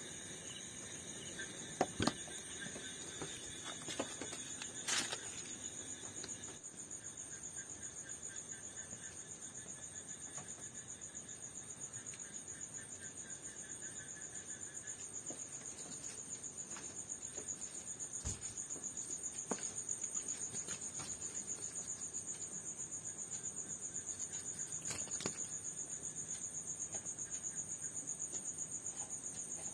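Crickets chirping steadily in a shrill, rapidly pulsing drone at two high pitches. A few short knocks sound about two and five seconds in.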